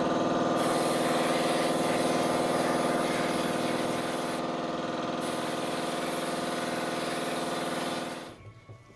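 Sandblast cabinet running, compressed air driving recycled glass media through the blast gun: a steady hiss with a steady pitched drone under it, both stopping about eight seconds in. The blast is stripping the chrome off small steel light rings.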